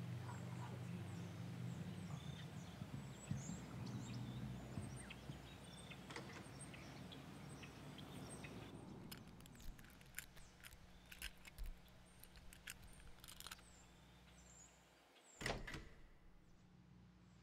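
Outdoor ambience with birds chirping over a low hum for the first half. Then comes a run of light clicks and taps, and a wooden door opening with a thunk about fifteen seconds in.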